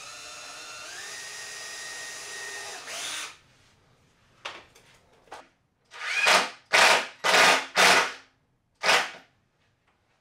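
Cordless drill running steadily for about three seconds, its pitch stepping up about a second in. After a pause come four quick loud bursts, then a fifth a second later, as screws are driven into a plywood panel.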